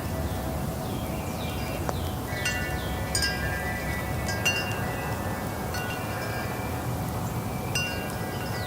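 Wind chimes stirred by the wind, their tubes struck at irregular moments and ringing on in overlapping high tones over a steady low rush of wind.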